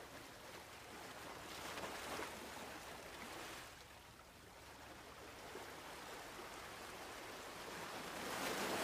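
Faint hiss of wind and water on a boat at sea, rising and falling gently.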